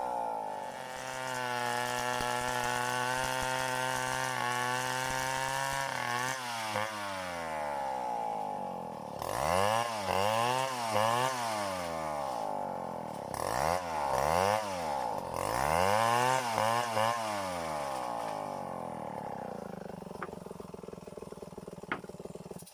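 Stihl 070 two-stroke chainsaw running at a steady high speed, then revving up and dropping back several times in a row before settling and slowly easing off.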